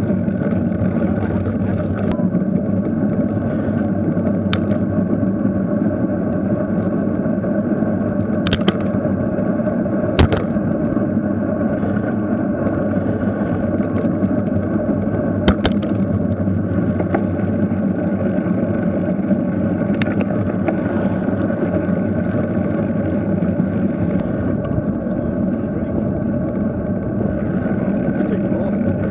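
Steady wind and road rumble picked up by a camera on a moving road bicycle, with a few sharp knocks scattered through.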